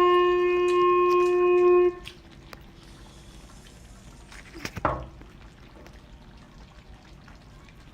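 Background music ending on a long held woodwind note, which cuts off about two seconds in. Then low-level room noise with faint clicks and one short louder knock about five seconds in.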